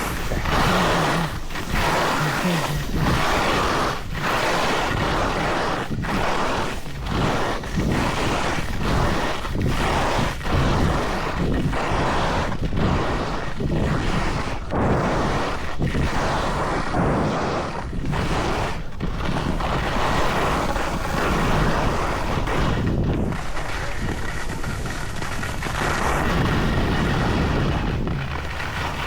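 Wind buffeting the microphone of a camera carried on a fast downhill ski run, over the hiss of skis sliding on snow, with a swish about once a second as the skis turn.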